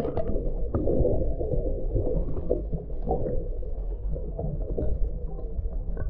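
Muffled rush and gurgle of river current heard through a camera submerged in the water, with a few faint ticks scattered through it.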